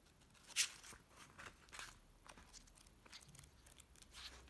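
Soft paper rustles as the pages of a paperback manga volume are leafed through: a few quiet page flicks, the loudest about half a second in.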